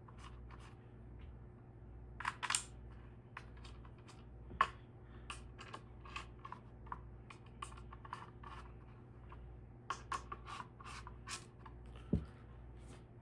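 Scattered light clicks and taps of ceiling fan blades and their hardware being handled, with one low thump near the end, over a steady low hum.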